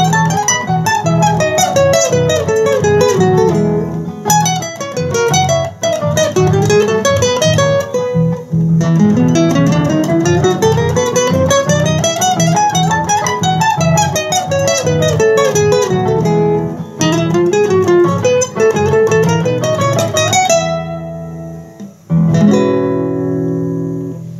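Solo classical guitar playing a gato cuyano: quick runs of single notes climbing and falling over bass notes. Near the end two final chords are struck, about a second and a half apart, and left to ring out and fade.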